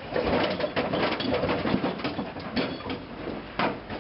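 Continuous clattering and rattling of things being handled and moved, a dense run of clicks and knocks with no pause.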